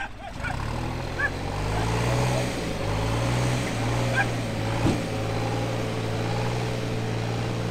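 Diesel engine running steadily, coming up in level about half a second in. A vehicle door shuts with a thump about five seconds in.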